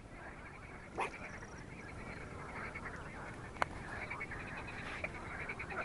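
Frogs calling in a chorus from the reservoir, many rapid pulsed croaks overlapping. A few sharp clicks cut through: about a second in, midway, and near the end.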